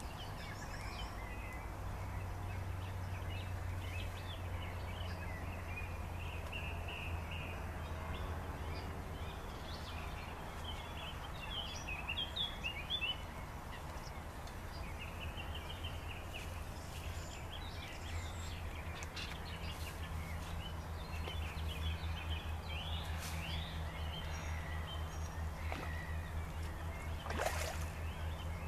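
Small birds chirping and trilling on and off over a steady low rumble, with a short sharp noise near the end.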